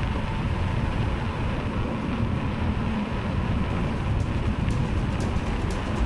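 Wind buffeting the microphone over a steady low rumble. From about four seconds in, faint ticks come about every half second.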